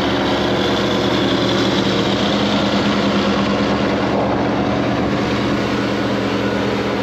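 Diesel engine of a converted beet-harvester silage push machine running at a steady pitch as it pushes chopped maize up the silage clamp.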